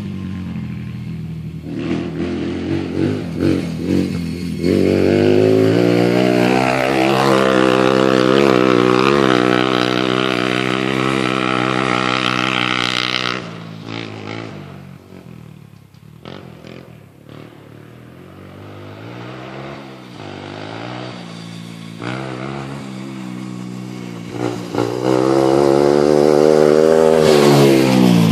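2003 Honda TRX 90 youth ATV's small four-stroke single-cylinder engine, breathing through a Big Gun Evo Mini full exhaust, on a ride. It accelerates about five seconds in and holds high revs for several seconds, drops back to low revs for about ten seconds, then accelerates hard again near the end before falling off.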